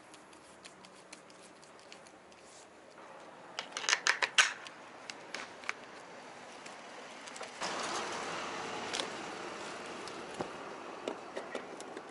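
Handling noises: a quick run of sharp clicks and rattles about four seconds in. Then a steady rustling crunch with scattered clicks as a power cord is handled and plugged into a portable power station on gravel.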